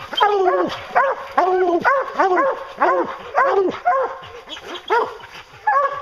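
English hounds baying at a tree with a treed black bear in it: loud, repeated barks, about two a second, from more than one dog, each bark rising and falling in pitch. This is the tree bark that tells the hunter the bear is up the tree.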